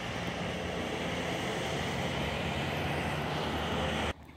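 Steady, loud rushing and rumbling noise, which cuts off abruptly about four seconds in.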